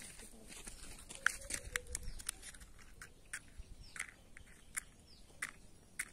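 Faint, irregular sharp crackles and ticks from the lit fuse of a paper firecracker burning down before it explodes.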